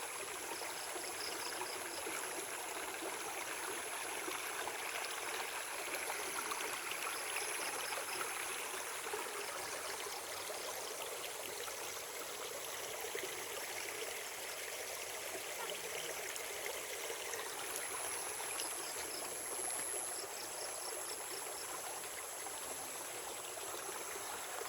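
Small forest stream flowing steadily, water trickling and gurgling.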